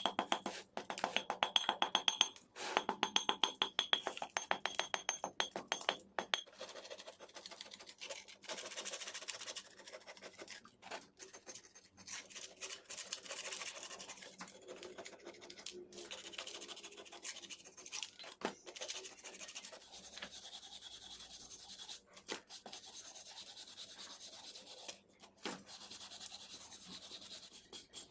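Irregular hand scrubbing and rasping on a metal scooter wheel part, a scratchy rubbing sound, with rhythmic background music in the first few seconds.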